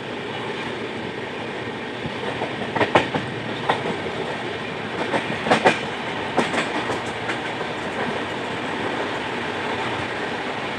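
Passenger train running along the track: a steady rolling rumble, with a run of sharp wheel clacks over rail joints in the middle.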